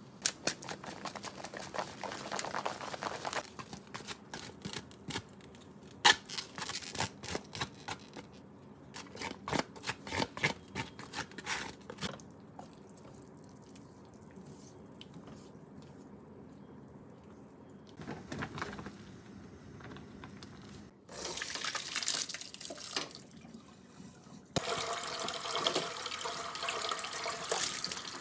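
Kitchen work sounds: a run of light clicks and taps in the first half, then from about 24 seconds in, a kitchen tap runs steadily into a stainless steel sink as boiled noodles are rinsed under it.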